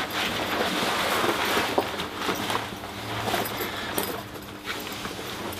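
Nylon plate carrier vest and its webbing rustling and scraping as it is pulled on over the head and settled onto the shoulders, with a few light knocks and clicks of its fittings.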